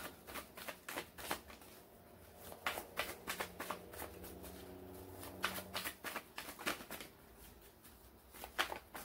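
A tarot deck being shuffled by hand: flurries of quick card flicks and slaps, with short pauses between them.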